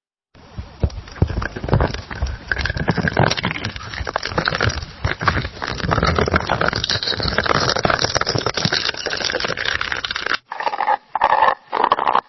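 Coffee maker brewing: a dense crackling, sputtering noise full of small clicks, which stops about ten seconds in and gives way to a few separate sputtering bursts.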